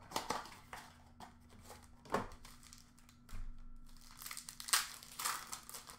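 Plastic wrapper of a hockey trading-card pack crinkling and tearing as it is handled and ripped open by hand. It comes in irregular crackly bursts, the loudest about three quarters of the way through.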